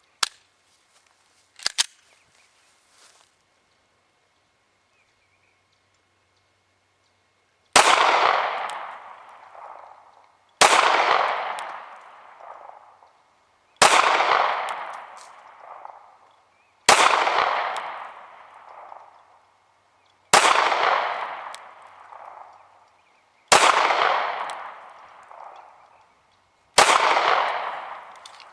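Beretta Nano 9mm subcompact pistol fired seven times in slow, deliberate shots about three seconds apart, each sharp crack trailing off in a long echo. A few light clicks of gun handling come before the first shot.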